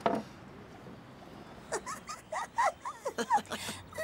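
Rag-doll puppet's high-pitched squeaky gibberish chatter: quick rising and falling squeaks beginning a little under halfway through, after a brief sound at the very start.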